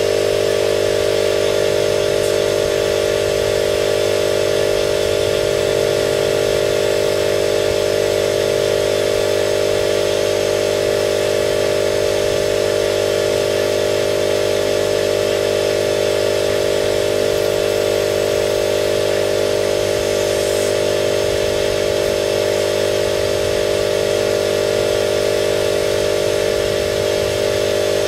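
A motor running steadily with an unchanging hum.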